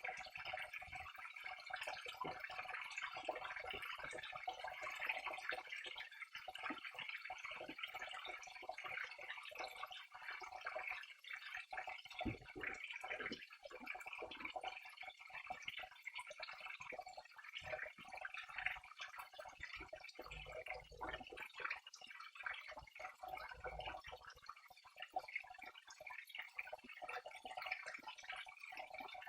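Small stream of water running and trickling, with many tiny splashes and drips.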